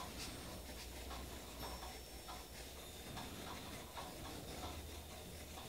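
Faint, irregular light clicks and taps of small objects being handled, over a low steady hum.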